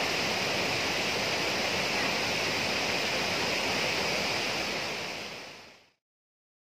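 A high waterfall's steady rushing roar of falling water, fading out about five and a half seconds in.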